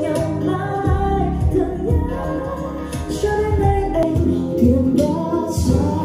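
A song with female singing played through a B&O Beoplay A9 (4th generation) wireless speaker at 65% volume, picked up about 1.5 m away in a room.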